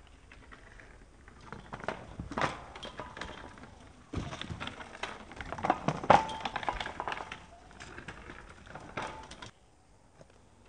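A small child's bicycle rolling across a bare dirt yard and running over a wooden block, with rattling and irregular knocks, loudest about six seconds in.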